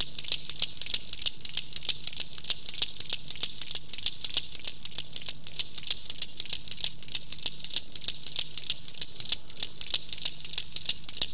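A hand-shaken percussion rattle keeping a fast, steady rhythm of several strokes a second between the sung lines of a devotional recitation, over a low steady hum.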